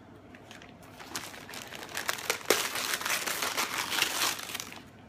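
Paper packaging crinkling and crackling as a gift is unwrapped by hand. It starts about a second in, grows loudest in the second half, and stops shortly before the end.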